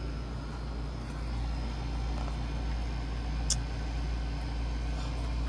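Steady low hum, even and unchanging, with a single short high tick about three and a half seconds in.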